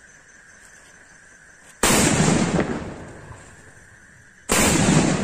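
Two atom bomb firecrackers exploding one after the other: a loud bang about two seconds in and another near the end, each trailing off over about a second.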